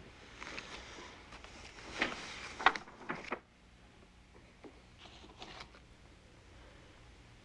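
A few short rustles of cloth and bedding, the loudest about two and a half seconds in. They stop abruptly, and near-quiet room tone follows with a few faint soft clicks.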